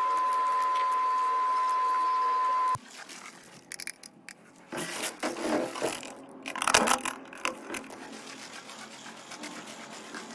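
A steady, high electronic beep tone that cuts off suddenly after about three seconds, followed by faint irregular scraping and clicking.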